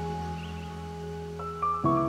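Calm instrumental background music with held, sustained chords. A few higher notes come in late, and the chord changes near the end.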